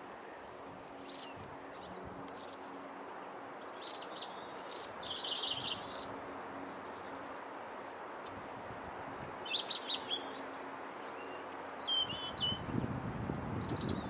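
Small songbirds chirping: short high calls and brief twittering phrases come at irregular intervals over a steady outdoor hiss. A low rumble sets in near the end.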